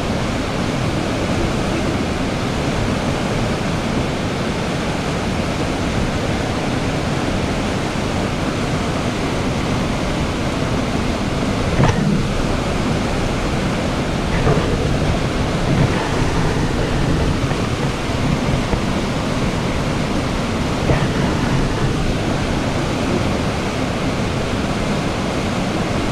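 Steady rushing noise of riding aboard a moving narrow-gauge steam train: the rumble of the cars on the rails mixed with wind, with a few faint knocks from about halfway through.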